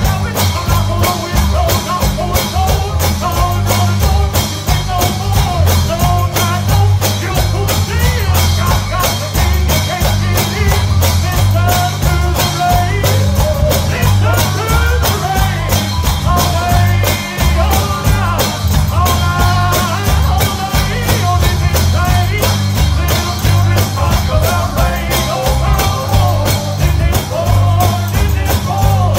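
Live gospel band music with singing: a heavy bass line under a steady, fast beat of tambourine-like strikes, with a voice singing the melody over it.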